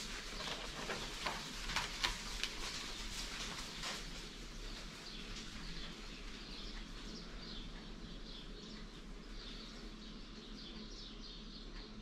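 Small birds chirping outside, a quick, busy run of high chirps through the second half. There are a few sharp clicks in the first few seconds, over a steady low hum.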